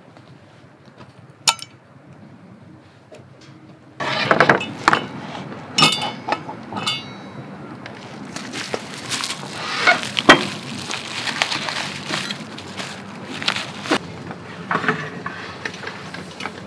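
Metal clicks and clinks of a folding gas camping stove being handled: its steel legs and pot supports are swung open and snap into place, and the stove is set down on a wooden board. There is a single click early on, then, about four seconds in, a run of louder clatter with a brief metallic ring.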